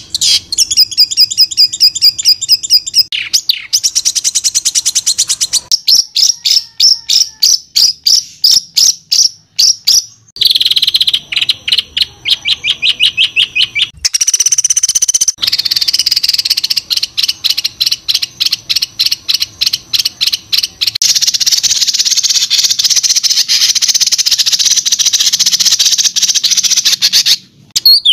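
Caged songbirds singing harsh, rapid strings of sharp repeated notes and chattering trills, in spliced segments of a few seconds each that switch abruptly from one bird to the next. This is 'tembakan kasar' (rough shot) song of the kind played as tutor song to train songbirds.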